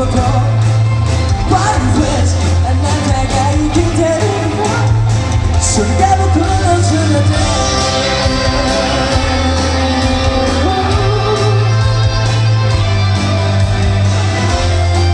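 Live rock band playing with a singer, heavy bass and drums under the vocal line.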